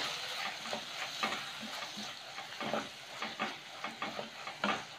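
Wooden spatula stirring and scraping a sizzling onion-tomato-garlic masala around an earthen clay pot: irregular scrapes over a steady frying hiss as the chilli powder and turmeric are fried into the masala.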